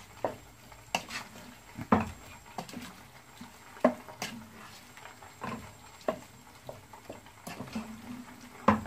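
Wooden spatula stirring a thick curry of cucumber pieces and dried fish in a pot, scraping and knocking against the pot's side in irregular clacks about once a second, over a low sizzle of the curry cooking.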